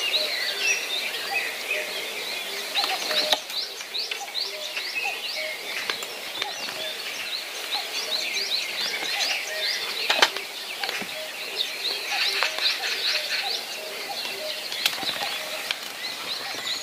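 Many birds chirping together in a dense, steady chorus. Under it a lower call repeats a few times a second, and there are a few sharp clicks, one about three seconds in, one near the middle and one near the end.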